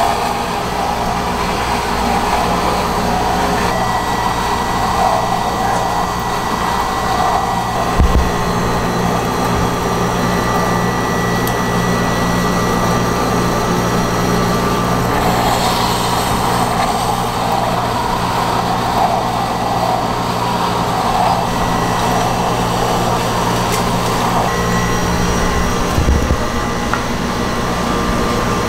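Bingsu ice-shaving machine running with a steady motor hum as it shaves fine ice into a bowl, with two dull knocks, one about a third of the way in and one near the end.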